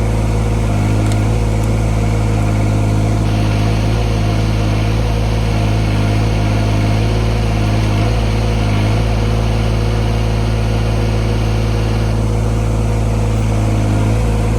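Three-cylinder Yanmar 3TNV74F diesel engine of a 2-ton mini excavator, running steadily.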